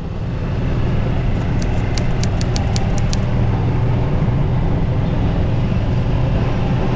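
A motor running with a steady, loud low rumble, joined about a second and a half in by a quick run of about ten faint high clicks lasting under two seconds.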